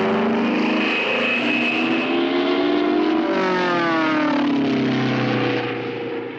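Stuka dive-siren sound effect: a wailing siren with engine-like noise, several overlapping tones rising in pitch for about three seconds and then falling away, fading out near the end.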